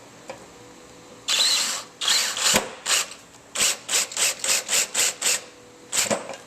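Oiled #4 self-tapping screw being driven into an aluminium LED heatsink, cutting its own thread: a grinding rasp in two longer bursts, then a run of short ones at about four a second, and a last one near the end.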